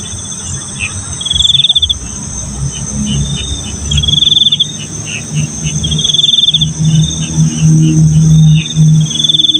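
Night insects chirping: a steady high drone with loud trilled cricket chirps repeating about every two to three seconds and fainter chirps between. A low hum comes and goes from about halfway on.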